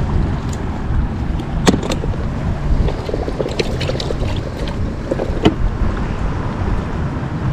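Steady wind rumbling on the microphone, with a few sharp clicks from fishing tackle being handled as a hook is rebaited, the clearest about two seconds in and again near the end.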